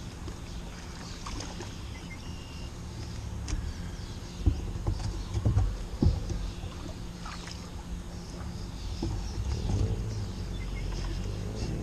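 Kayak on the water: a steady low rumble with several short knocks against the hull scattered through it.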